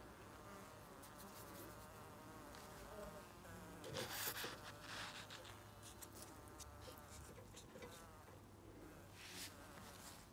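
Faint, steady hum of many honey bees on a lifted brood frame, with a few brief louder noises about four seconds in and again near the end.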